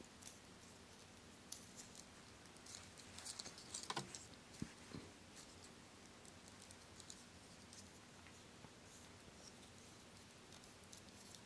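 Faint clicks and scrapes of hard plastic Beyblade parts being handled as someone tries to twist apart a stuck Driger V2 layer, over near silence; the clicks cluster in the first half.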